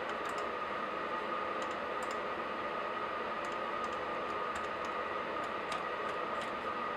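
Laptop keyboard being typed on: light, irregular keystrokes in small clusters over a steady background hiss.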